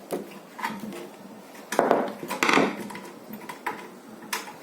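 Irregular knocks and clatter of tools and metal parts being handled inside an opened microwave oven during a diode replacement, the loudest cluster about two seconds in.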